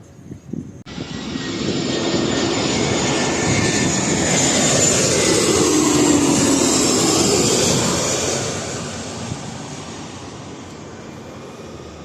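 Landing aircraft passing low overhead. The engine noise starts suddenly about a second in, swells to its loudest around the middle with a falling pitch as it goes by, then fades away.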